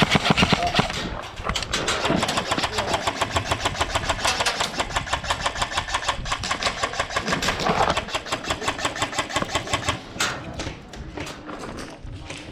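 Airsoft gun firing a long full-auto burst: a rapid, even stream of shots lasting about eight seconds that stops near the end, followed by a few single shots.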